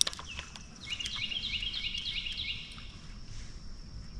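A bird singing a quick run of short, repeated high chirps, about five notes a second for under two seconds, with a steady faint high whine behind it.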